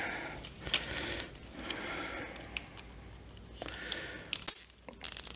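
Light clicks and rattles of a plastic zip tie being fitted around a block heater power cord and an engine wiring harness, with a quick run of sharp clicks near the end as it is pulled tight.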